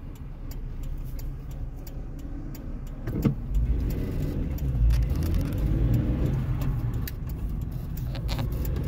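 Car engine and road rumble heard from inside the cabin, growing louder about three and a half seconds in as the car pulls away, with scattered light clicks.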